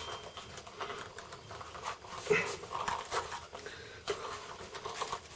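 Faint, irregular clicks and rubbing of hard plastic parts being handled and screwed together on a pressure washer's patio-cleaner attachment, as a piece is tightened down.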